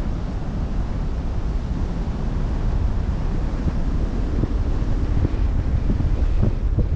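Wind buffeting the microphone over the rush of open-sea water from a moving boat. It is a steady rushing noise with rough low rumbles, getting gustier in the second half.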